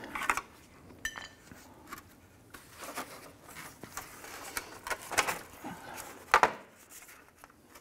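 Irregular clicks, taps and knocks of hard plastic grille parts and a screwdriver as the grille, its emblem and trim bezel are pried apart and handled. The two loudest knocks come a little past the middle and about a second later.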